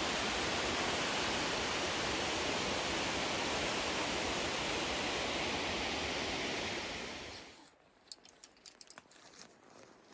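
Large mountain waterfall rushing steadily, a dense even roar of falling water. It cuts off suddenly about seven and a half seconds in, leaving a few faint clicks and taps.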